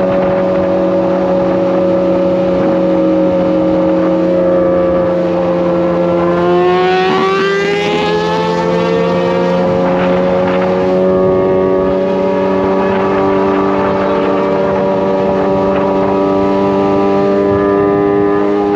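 Kawasaki sport bikes' inline-four engines running at steady cruising revs. About six to eight seconds in, one engine's pitch climbs and then holds higher, as that bike speeds up.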